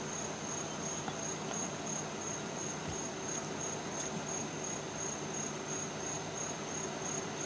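Insects chirping steadily in the background, a high, evenly pulsing trill that keeps up without a break.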